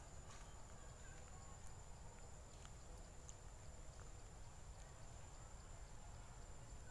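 Near silence: faint outdoor room tone, a low rumble with a thin steady high whine and a few faint ticks.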